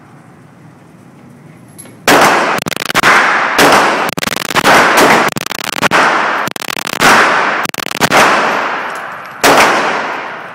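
Gunshots at a shooting range: after a short lull, a string of about a dozen shots fired at an uneven pace, each followed by a long echoing tail.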